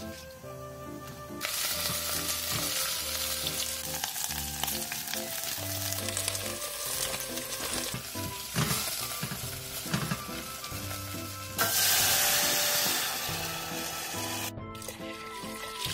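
Green onions and chili flakes frying in oil in a stainless steel pot, sizzling steadily as a wooden spatula stirs them, with a couple of knocks of the spatula against the pot. The sizzle gets louder for a moment near the end.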